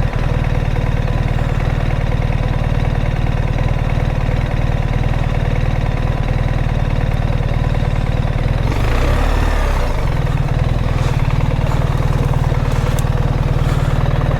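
BMW R 1300 GS Adventure's boxer-twin engine idling steadily, with a brief burst of extra noise and a change in the engine note about nine seconds in.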